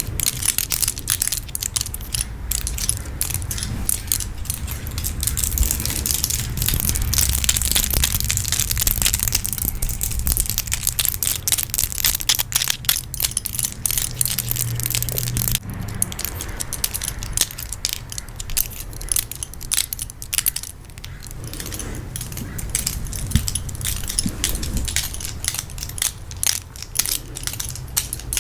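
Rings and tarot cards handled close to the microphone: a dense run of crisp clicks, taps and crackles with a steady low rumble beneath. The texture changes about halfway through.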